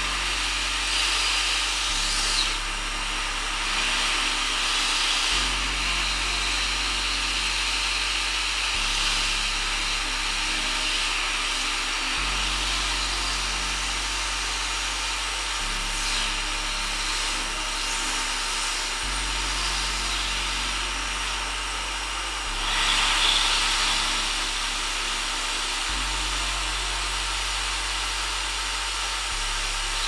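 Electric heat gun running steadily on its highest setting, blowing hot air onto wiring-harness sleeving. The airflow swells briefly about three-quarters of the way through.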